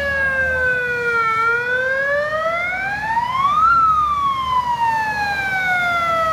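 Fire engine's siren in a slow wail. The pitch sinks for about a second, climbs for about two and a half seconds to a peak near the middle, then sinks slowly again.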